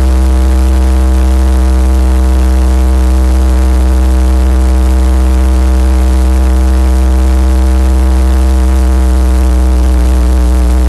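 Robinson R22 Beta II helicopter running on the ground, its four-cylinder Lycoming piston engine and two-blade rotor turning, heard from inside the small cabin. The sound is a loud, steady drone with a deep low hum and an even stack of steady tones, unchanging throughout.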